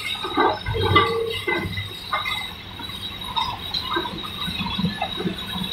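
Caterpillar demolition excavator working its crusher attachment into a concrete building: scattered knocks and crunches of breaking concrete and debris over the low hum of the engine, with a louder knock just under a second in. A thin, steady high whine runs underneath.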